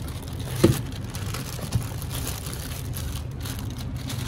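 Clear plastic bag crinkling as a bagged handgun is handled and lifted out of a cardboard box, with a sharp knock about half a second in and a lighter one a second later, over a steady low hum.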